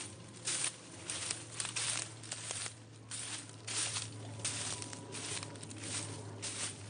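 Footsteps crunching through dry leaf litter on a forest floor at a walking pace, about two steps a second.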